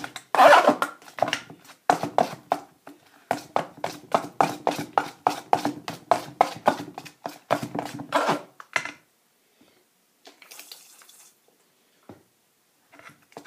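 Thin plaster being stirred in a metal mixing bowl: a tool scrapes and knocks against the bowl in quick strokes, about three a second, and stops about nine seconds in.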